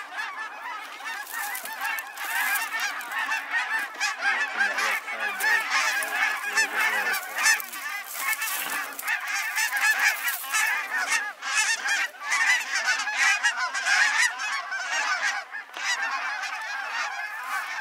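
A large flock of geese flying overhead, many birds calling at once in a dense, unbroken clamour of overlapping honks.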